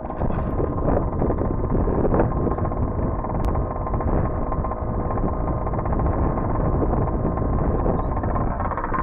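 Small two-stroke engine of an HPI Baja 5T gas RC truck running steadily.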